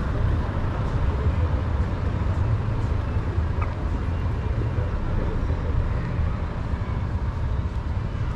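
Steady rumble of road traffic on a city avenue.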